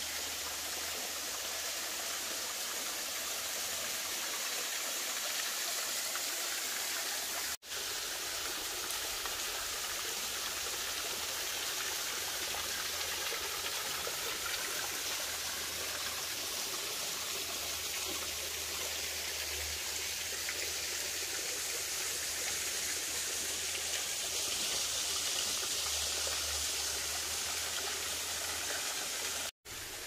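Waterfall: a steady rush of falling water that cuts out for an instant about seven and a half seconds in and again just before the end.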